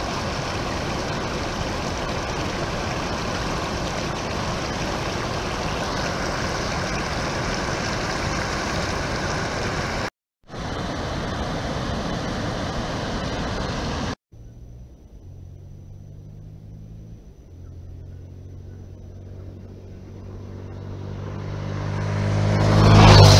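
River rapids rushing steadily over rock, cut off by a brief silence about ten seconds in. Later a dirt bike's engine is heard approaching, growing louder until it passes close by near the end, the loudest moment.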